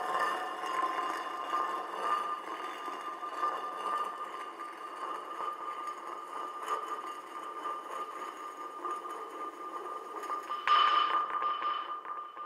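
Electronic ambient drone for an abstract film soundtrack: a textured wash holding a steady high tone. Near the end it suddenly swells louder, then begins to fade.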